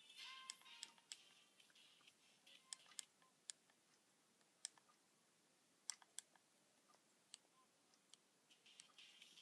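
About ten faint, sharp clicks and taps scattered over several seconds, as of fingers working small buttons, against near silence; a trace of music in the first second.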